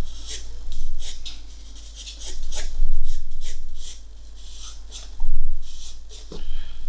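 Pencil sketching on paper: runs of short, scratchy strokes in quick succession, over a low steady hum.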